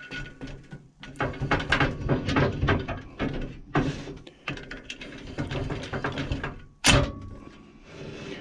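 Lathe tailstock being brought up to support the end of a pen mandrel: a run of clattering clicks and knocks, then one sharp loud knock near the end.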